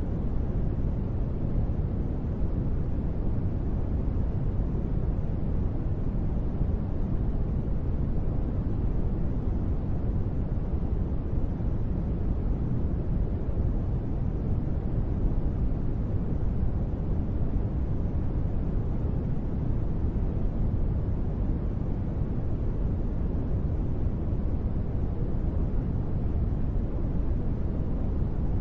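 Steady, deep rushing noise, unchanging throughout, with no separate drops or other events: a sleep white-noise track billed as gentle rain.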